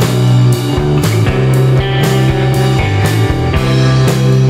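Rock music with guitar and drums, a steady beat of about two drum strikes a second.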